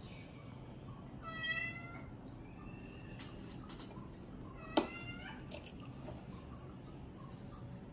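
A domestic cat meows: one drawn-out meow about a second and a half in, then a shorter one about five seconds in. With the second meow comes one sharp clink, the loudest sound, as a ceramic spoon knocks against a ceramic bowl.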